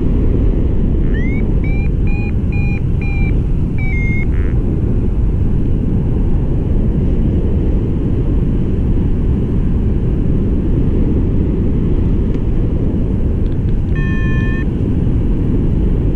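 Steady wind rushing over the microphone of a paraglider pilot in flight. About a second in comes a run of short electronic beeps that rise in pitch and then hold, and near the end there is one brief beep.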